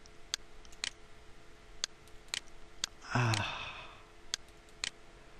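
Computer mouse buttons clicking, single sharp clicks spaced about half a second to a second apart as points are placed. A short breathy sigh about three seconds in.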